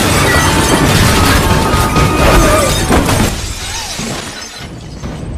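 Glass shattering and crashing in a loud action-film sound mix with music underneath. It is loud for about three seconds, then dies down.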